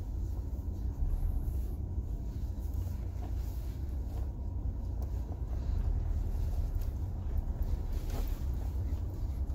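Low, steady rumble of a Ford Ranger Raptor's 2.0-litre bi-turbo diesel and running gear, heard from inside the cab while the truck creeps along at low speed.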